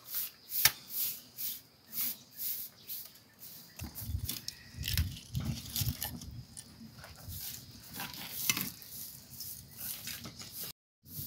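Dry kindling crackling and snapping as a wood fire catches under an iron grate, with sticks knocking as they are fed in: a string of short sharp clicks, about two a second.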